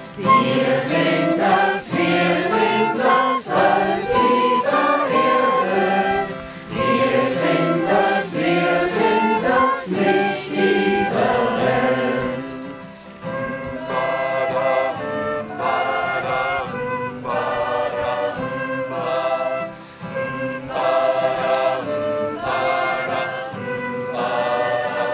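Mixed choir singing a hymn with guitar and flute accompaniment; about halfway through the voices drop out and the flute and guitar play on alone.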